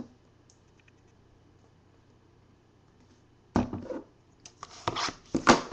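Near silence for about three and a half seconds. Then comes handling noise from a cardboard hobby box of trading cards being picked up and turned over: a quick run of scrapes and knocks, the sharpest near the end.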